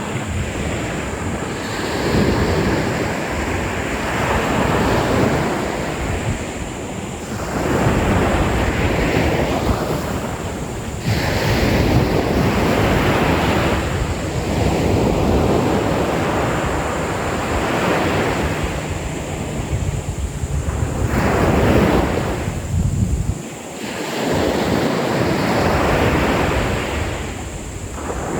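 Ocean waves breaking on a beach, the surf swelling and falling back every three to four seconds, with a low wind rumble on the microphone.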